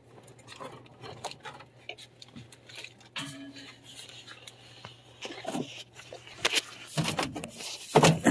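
Scattered clicks and light metallic clatter of hands working wire connectors and sheet-metal furnace parts, becoming busier and louder in the last second or so.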